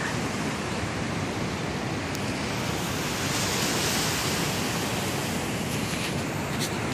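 Steady wash of surf and wind on the beach, swelling a little about halfway through.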